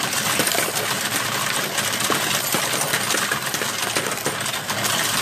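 Brandt 695 coin sorter and counter running, a load of mixed coins clattering and jingling steadily in its metal hopper as they are pushed in and fed through, over a faint low motor hum.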